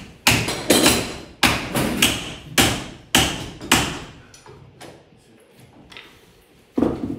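Mallet blows striking a wooden bending jig while a steamed Douglas fir board is clamped into the form. About eight sharp blows come in quick succession over the first four seconds, then a few lighter knocks, then one more hard blow near the end.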